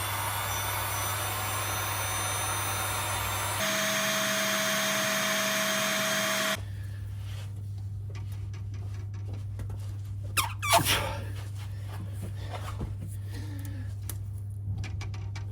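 Workshop tools working on a seized, corroded brake caliper carrier bolt: a steady hissing mechanical run that changes sound abruptly about three and a half seconds in and stops a few seconds later, then a few sharp metallic clanks about ten seconds in.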